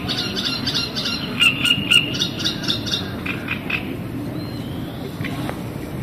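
Frogs croaking from the reeds in a quick series of short, harsh notes, with bird calls mixed in, over a low steady background rumble. The croaking dies away about four seconds in.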